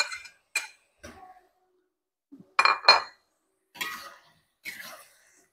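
Spatula clinking and scraping against a wok as chicken pieces are stirred into sauce: about seven separate strokes, the two loudest close together midway.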